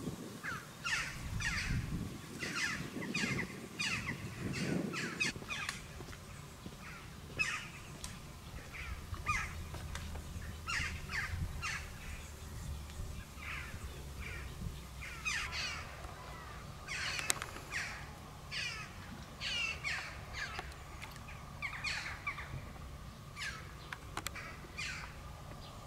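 Birds calling outdoors: a busy run of short, sharp calls, several a second, over a faint low rumble.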